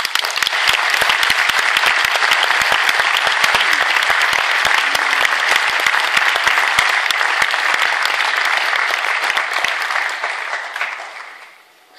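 Audience in an auditorium applauding, dense and steady, then dying away near the end.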